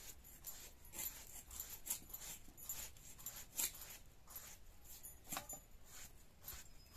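Knife cutting through fresh bottle gourd held in the hand, a string of short, crisp cutting clicks at an uneven pace of about one or two a second. A short pitched sound comes about five seconds in.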